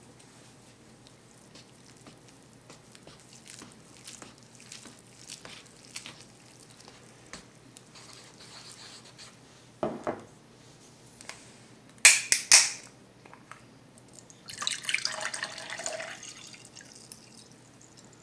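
Soft clicks of chopsticks in a paper cup of instant ramen, then a drinking glass set down on a stone counter with a thump, a bottle cap twisted open with three sharp cracks, and a drink poured from the bottle into the glass for about two seconds.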